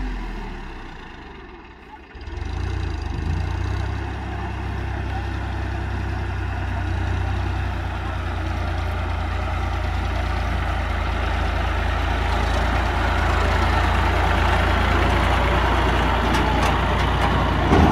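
Ford 4560 tractor's diesel engine running steadily under load as it pulls a loaded trolley, a low hum that grows louder toward the end as the tractor comes close.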